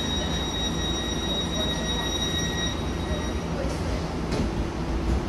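Danhai Light Rail tram running, heard from inside the passenger car: a steady low rumble, with a steady high-pitched wheel squeal for the first three seconds or so, then a couple of faint knocks.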